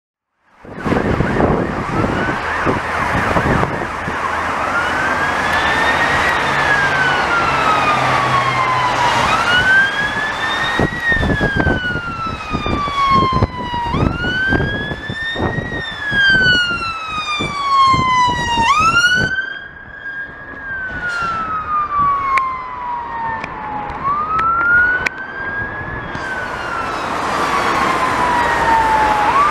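Scania P280 fire engine's electronic siren on a wail, rising quickly and falling slowly about every five seconds, with a brief run of fast sweeping tones just before it falls away near the middle. Traffic passes on a wet road underneath.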